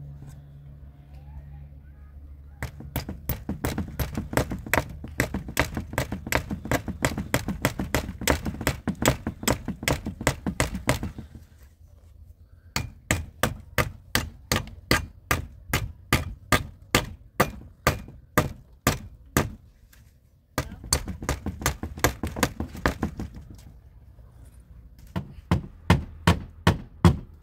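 Repeated sharp blows of a hand tool on wood, in several runs of about two to four strikes a second, as boards are split and worked for a tree house.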